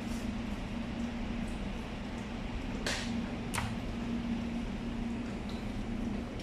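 Steady machinery hum with a low held tone, and two brief sharp scrapes a little under a second apart near the middle as a butcher's knife cuts along a pork carcass's ribs.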